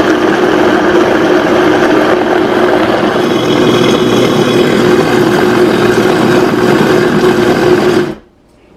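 Vitamix E320 Explorian blender running steadily on speed 3, blending frozen fruit and açaí puree, with a steady motor hum. It shuts off suddenly about eight seconds in.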